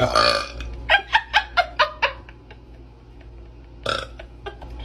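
A woman burping: one long burp at the start, then a quick run of about six short burps, and another short burp about four seconds in.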